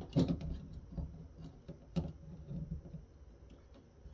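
Light clicks and scratching of a small hand tool picking and scraping at a thermal adhesive pad on a circuit-board chip, the pad breaking up in bits instead of peeling off. The sharpest clicks come just after the start and about one and two seconds in.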